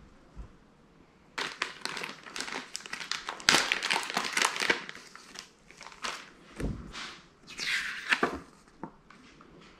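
A thin clear plastic bag crinkling and crackling as it is handled and opened, starting about a second and a half in, then a folded paper leaflet rustling as it is taken out.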